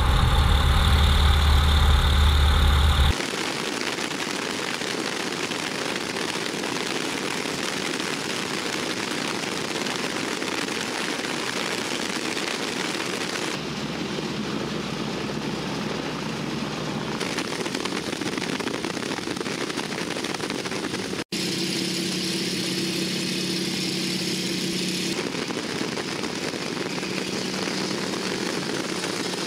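Radial engine and propeller of a North American SNJ trainer heard from inside the cockpit. It runs loud for about the first three seconds, then drops suddenly to a steadier, quieter drone that changes abruptly a few more times.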